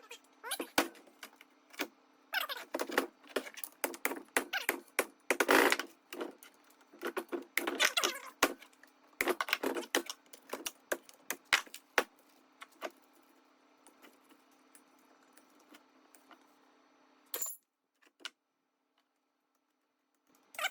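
Metal tools and parts clinking and clanking in a dense run of sharp knocks that stops about twelve seconds in, leaving a faint steady hum.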